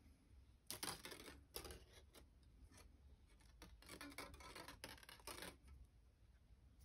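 Faint scraping and rustling of thin jewellery wire being drawn through the coils of a wire-wrapped cuff, in several short strokes.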